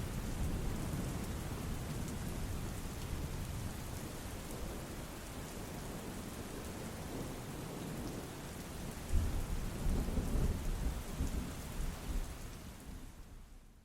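Steady rain with a low rumble of thunder rolling in about nine seconds in, then fading out near the end.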